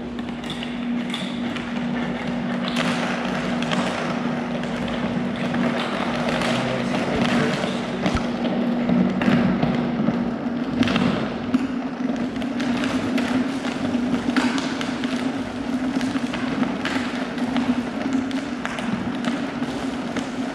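High-powered countertop blender running, blending a green smoothie with ice. Its motor hums steadily, shifts pitch about halfway through, and the contents knock against the jar throughout.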